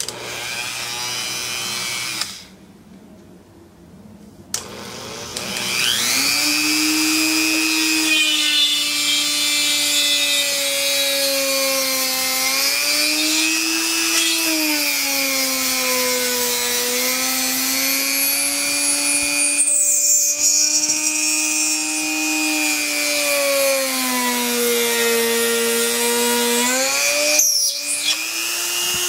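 A Dremel 3000 rotary tool drills into the edge of a plywood board. Its motor runs briefly, stops about two seconds in, then restarts and spins up with a rising whine. The whine then holds steady, sagging and recovering in pitch as the bit loads up in the wood, and cuts out for a moment near the end.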